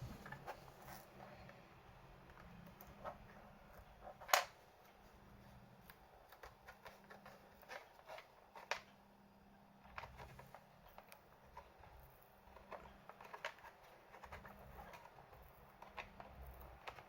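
Scattered small clicks and taps of hands and tools working on a laptop, with one sharper click about four seconds in.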